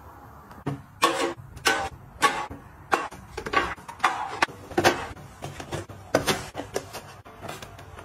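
Potato chip canisters and small cardboard boxes being set down one after another on a metal shelf. About a dozen sharp knocks and clacks come in quick, uneven succession.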